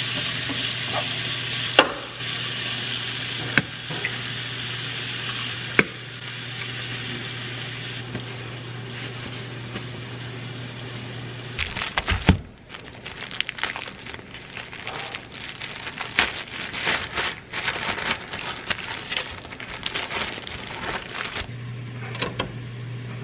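Onion and chiles sizzling in a skillet, stirred with a spatula that knocks against the pan three times. About halfway through the sizzle gives way to the crinkling of a plastic bag of corn tortillas being handled.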